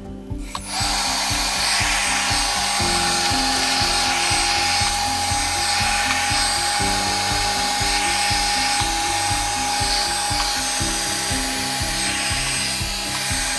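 Lefant M320 robot vacuum running on its cleaning run: a steady suction-fan hiss with a high motor whine, starting just under a second in. Background music plays underneath.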